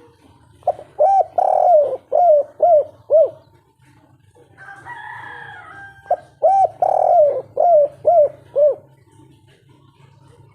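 Spotted dove (tekukur) cooing its 'kuk 3' song: two phrases of about six short coos each, each phrase with one longer, drawn-out note near its start, and a pause of a few seconds between them. A low steady hum runs underneath.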